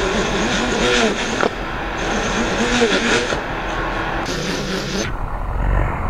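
Motors and propellers of a two-propeller drone (a quadcopter with two arms cut off) buzzing, their pitch swinging up and down as the unstable vehicle fails to fly. A sharp knock comes about a second and a half in, and the high hiss cuts off about five seconds in.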